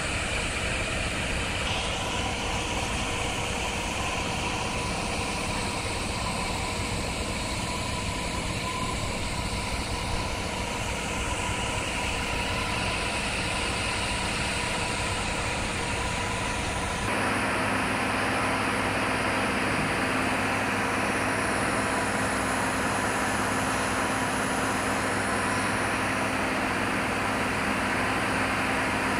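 A continuous steady drone of heavy construction-site truck and plant engines running. About two-thirds of the way through, the sound changes abruptly to a fuller, more even noise.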